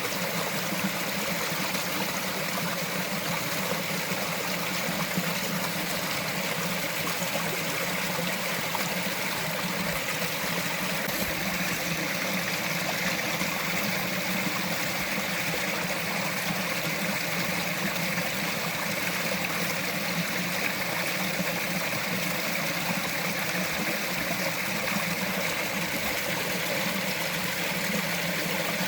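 Small mountain stream flowing and trickling steadily over rocks.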